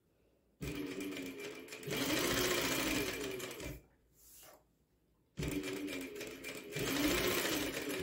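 Industrial sewing machine stitching lining to blouse fabric in two runs, speeding up and slowing down, with a short pause about four seconds in.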